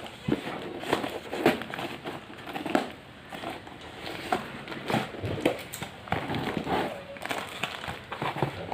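Packaging crinkling and crackling in irregular bursts as it is handled and pulled open.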